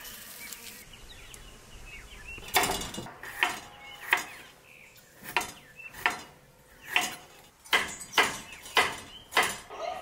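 Kitchen knife chopping fresh turmeric root on a wooden cutting board: about a dozen sharp knocks at an uneven pace, starting about two and a half seconds in.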